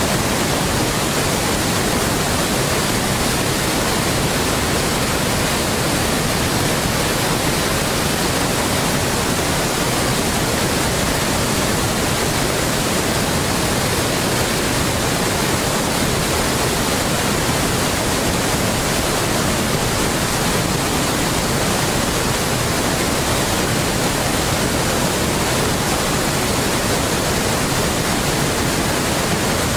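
A steady, unchanging hiss of noise spread evenly from low to very high pitches, with no rhythm, tone or breaks.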